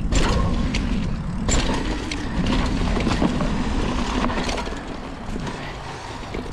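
Mountain bike ridden fast down a dirt trail over jumps: a steady rumble of tyres and air rush with scattered sharp clacks and rattles from the bike, easing off near the end.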